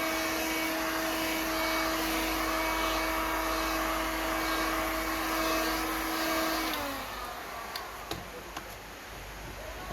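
Vacuum cleaner motor running steadily with a constant whine, then switched off about seven seconds in, its pitch falling as it winds down. A few light clicks follow.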